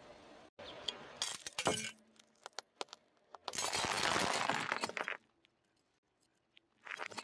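A car tyre crushes a glass fluorescent tube: a few sharp cracks and tinkles, then a dense burst of shattering, crunching glass lasting about a second and a half.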